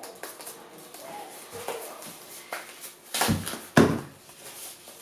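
Tissue paper rustling and crumpling as it is pulled out of a doll's boots and handled, with two louder crumples a little after three seconds in.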